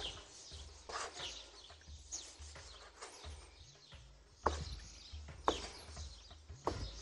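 Kitchen knife slicing a kiwi on a cutting board, the blade knocking the board three times in the second half. Birds chirp now and then in the background.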